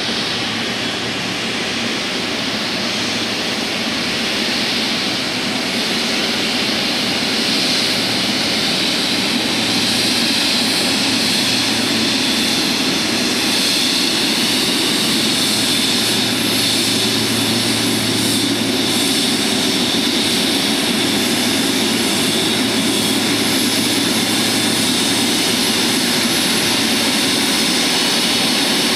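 Jet airliner's engines running, a loud, continuous rush that builds a little over the first several seconds and then holds steady.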